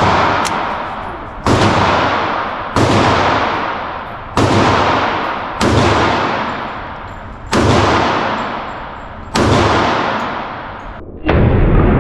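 Glock pistol fired shot after shot in an indoor shooting range: seven sharp, loud shots about one and a half seconds apart, each trailing off in a long echo.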